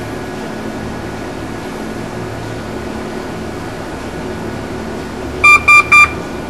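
Steady background hum, then three short, loud electronic beeps in quick succession near the end, consistent with a handheld diagnostic tool signalling while it reads the air-suspension ECU.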